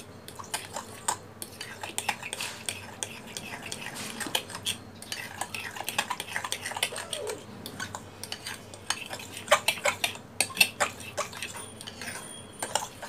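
A spoon stirring thick semolina and yogurt batter in a bowl. It clinks and scrapes against the bowl in quick, irregular strokes, loudest about ten seconds in.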